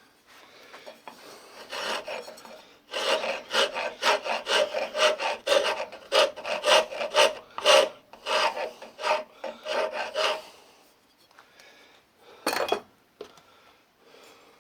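A rusty rasp file scraping a wooden axe handle in a quick run of back-and-forth strokes, about two or three a second, for several seconds before stopping. One more short, loud stroke comes a couple of seconds later.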